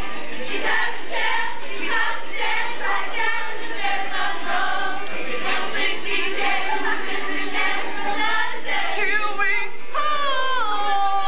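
A group of young voices singing together as a chorus, ending on a long held note near the end.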